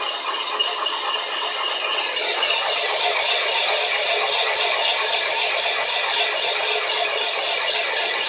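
Van Norman Perfecto 777 boring bar running, its cutter boring out a cylinder in a cast-iron 454 big-block Chevy block. It makes a steady high-pitched whine over a hiss of cutting, which grows louder about two to three seconds in.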